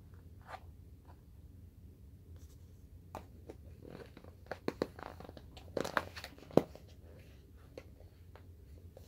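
Rustling and crinkling with a flurry of sharp clicks in the middle, the sharpest about six and a half seconds in, as a puppy noses around searching for a hidden strip.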